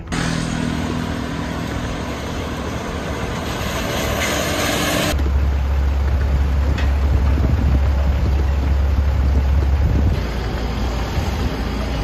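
Truck-mounted crane's engine running at a work site, under a steady rush of noise. The sound changes abruptly about five seconds in, when a heavy low rumble takes over for several seconds before easing.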